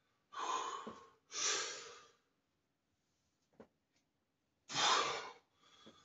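A man taking hard, noisy breaths while doing heavy barbell squats. Two come close together in the first two seconds and a third about five seconds in, with a faint click between them.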